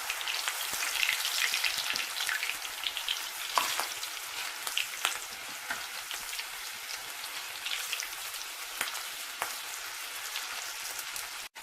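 Okra pieces coated in gram flour and rice flour batter deep-frying in hot oil: a steady sizzle with scattered crackles and pops.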